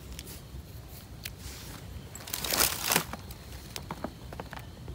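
Close rustling and crunching with scattered sharp snaps and clicks. The loudest part is a denser crunching rustle that lasts about half a second, around two and a half seconds in.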